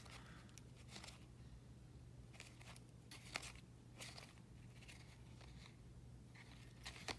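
Faint, scattered rustles and soft ticks of trading cards being handled and flipped through, over a low steady hum.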